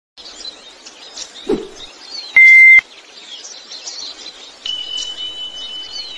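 Birds chirping and tweeting, with a low thump about one and a half seconds in and a loud, short, steady beep just before the middle. A steady high tone comes in about three quarters of the way through and holds.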